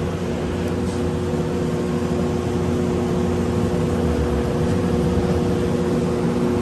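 Electric train running, heard from inside the carriage: a steady rumble with a steady hum of several tones from the drive.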